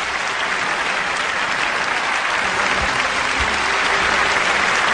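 Audience applauding, a steady wash of clapping.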